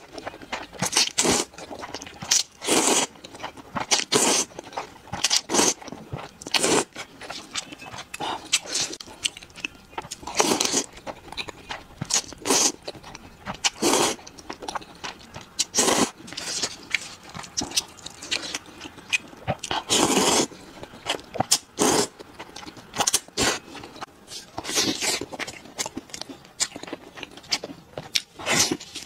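Close-miked eating sounds: repeated slurping of thick spicy noodles and wet chewing, coming in irregular bursts every second or so. Near the end there is a bite into sauce-glazed fried chicken.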